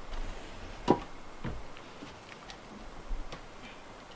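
Split firewood being stacked: pieces of wood knocking against each other and the woodpile, with one sharp clack about a second in, a duller knock just after, and several lighter clicks.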